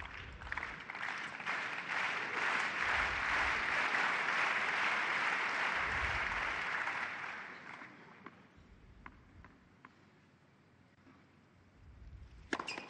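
Arena crowd applauding, swelling over the first couple of seconds and fading away after about eight seconds. Near the end, a few sharp knocks of a tennis ball being struck as play starts again.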